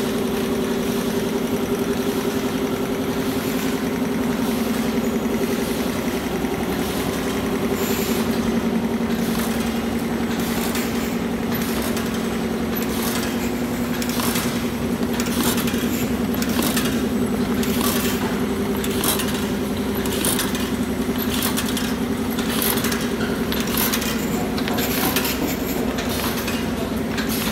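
Corrugated box making machinery running: a steady hum of motors and rollers, joined about eight seconds in by a regular clicking of about one and a half clicks a second from the folder-gluer's mechanism.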